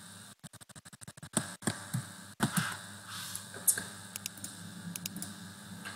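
Computer keyboard keys tapping irregularly, a few louder taps among scattered quieter ones, as a short name is deleted and retyped.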